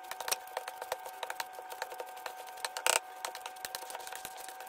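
Boiled potatoes being mashed in a non-stick pot with a plastic masher: rapid repeated knocks and clicks of the masher pressing through the potatoes and striking the pan, with a louder knock about three seconds in.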